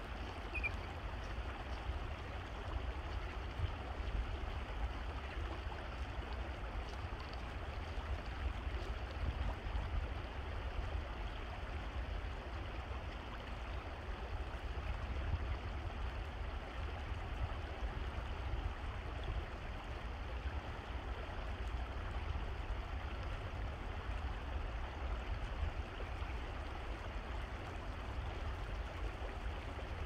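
Steady rush of flowing stream water, with a low rumble underneath.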